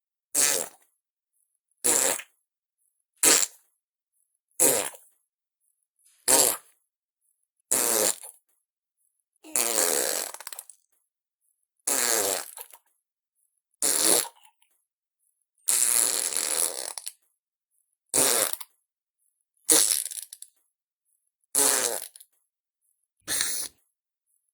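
A series of about fourteen homemade squishy slime splat sound effects, each a short wet squelch or splat, like slime squished or thrown against a hard surface. They come one after another every second and a half to two seconds, with silence between; two in the middle last longer.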